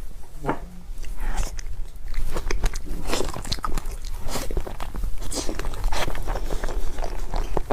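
Close-miked mukbang eating of chocolate cake: biting and chewing, with many small sharp crackles throughout.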